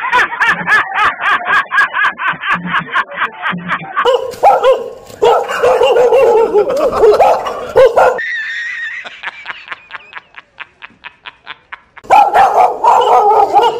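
Dog barking in quick runs of about four barks a second, the sound of a dog going for someone.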